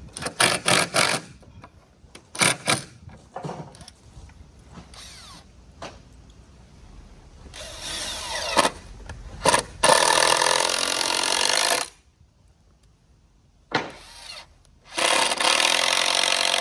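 A power drill driving screws into the wooden concrete formwork, in two steady runs of about two seconds each, after a few knocks on the wood near the start.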